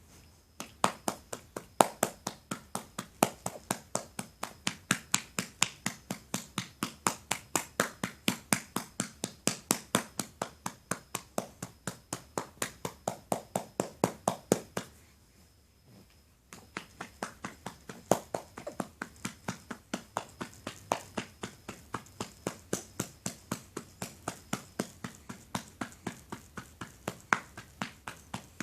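A hand patting a baby's back to bring up a burp: a steady run of sharp pats, about three a second, that stops for about two seconds around the middle and then starts again.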